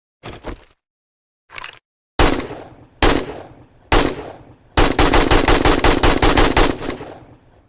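AK-47 rifle gunfire: a short burst, then several single shots about a second apart, then a sustained burst of rapid automatic fire lasting about two seconds that cuts off and rings away.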